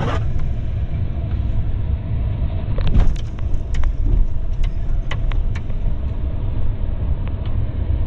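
Four-wheel-drive vehicle in 4 High crawling over an icy, snowy trail, heard from inside the cab: a steady low rumble of engine and tyres, with sharp knocks and rattles as it bounces over bumps, the biggest about three seconds in.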